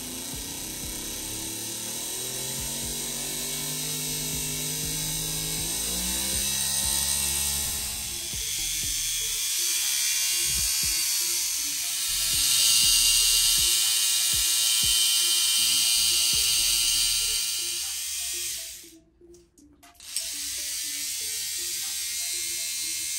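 Restored 1950s Meccano E20R electric motor running from a bench power supply on its first test run. Its hum rises in pitch over the first several seconds as it speeds up, then runs steadily with a high hiss over it. It drops out briefly about three-quarters of the way through, then runs on.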